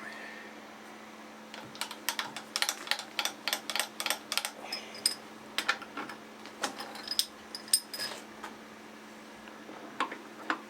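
Light metallic clicks and clinks, many in quick irregular succession, as tools and a small steel workpiece are handled at a milling machine's vise once the cut is finished. A steady low hum runs underneath.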